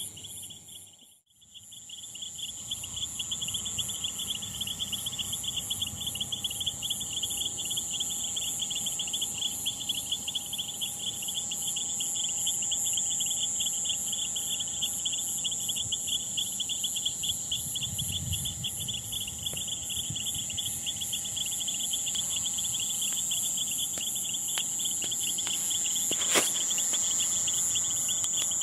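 Crickets trilling steadily, a fast pulsing chirr in two high pitches. It cuts out for a moment about a second in, and there is one sharp click near the end.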